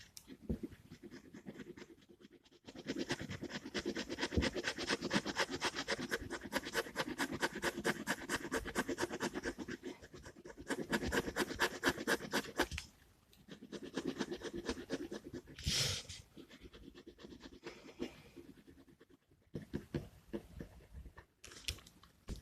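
Gel pen scratching on paper in rapid back-and-forth colouring strokes. The strokes come in long bursts with short pauses between them.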